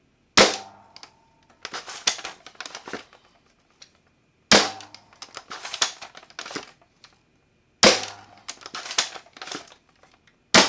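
A spring-powered foam dart blaster, an XZeus 2 Longshot shell fitted with a 16 kg spring, firing four times about three to four seconds apart. Each shot is a sharp crack, followed about a second later by the clack and rattle of the bolt being pulled back and pushed home to prime it. The last shot comes right at the end.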